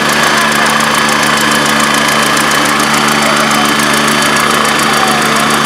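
MBB Bo 105 helicopter running on the ground with its main rotor turning: a steady high turbine whine from its twin Allison 250 turboshafts over a fast, even rotor beat, holding a constant level.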